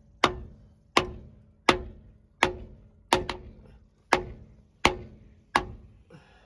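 Hammer blows on metal, struck steadily about once every 0.7 seconds, eight times, each with a short ring. They are an attempt to shock a rust-seized engine loose.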